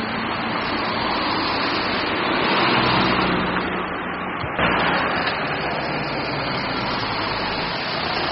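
Street traffic noise: cars driving past on a city road, a steady rush that swells about two to three seconds in and jumps abruptly in level a little past halfway.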